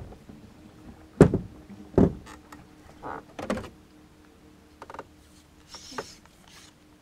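Hollow knocks and thumps against a small boat's hull, two loud ones close together and then several lighter ones, as a long-handled landing net and gear are handled. A faint steady hum runs underneath.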